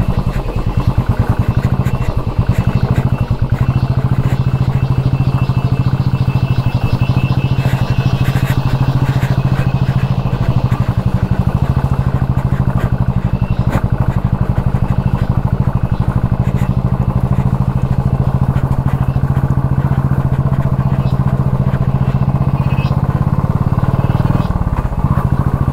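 Royal Enfield Bullet 500's single-cylinder engine running at steady revs while the motorcycle is ridden over a rough dirt track, with a brief dip in the engine note near the end.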